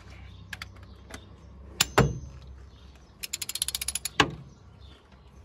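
Click-type torque wrench on cylinder head bolts, first tightening pass to 30 Nm. A few light knocks and a loud click as the socket and wrench are set on a bolt, then a quick run of ratchet clicks a little past three seconds in. A single sharp click follows just after, as the wrench reaches its set torque.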